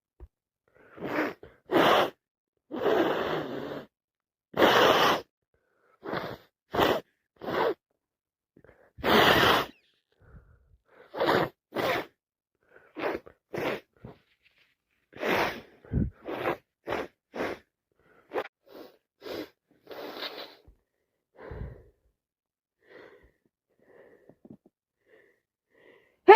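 A woman with a head cold sneezing over and over, with short sniffs in between. The bursts become fainter and more spaced out in the last few seconds.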